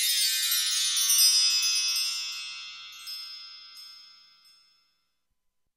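A bright, shimmering chime sound effect, like a bell tree or wind chimes, ringing high and then slowly fading away over about four seconds, with a couple of small tings near the end.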